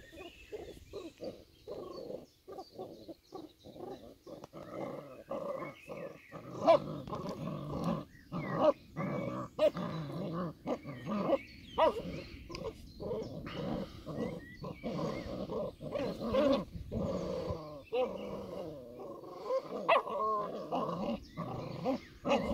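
Old English Sheepdog puppies growling and barking as they play, in many short sounds in quick succession.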